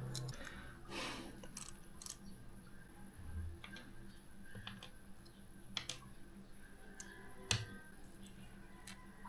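Scattered light clicks and taps of small computer parts being handled during assembly, with a short rustle about a second in.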